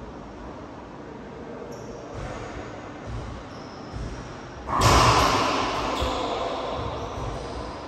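Racquetball play in an enclosed court: a few soft thuds, then a loud smack about five seconds in that echoes and dies away over a couple of seconds.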